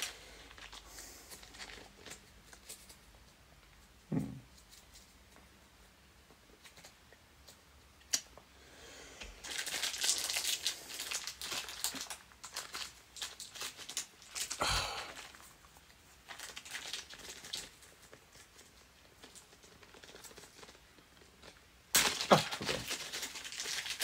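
Plastic packaging crinkling and rustling as PC parts are handled, in two longer spells, with a few light knocks in between.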